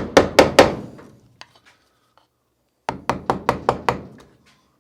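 Rapid taps driving a No. 7, 14 mm carving gouge into the wood: a quick run of knocks, about five a second, at the start, a pause of about two seconds, then another run of about six.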